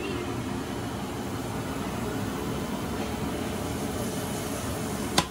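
Steady whirring hum of a kitchen appliance fan, with one sharp click near the end.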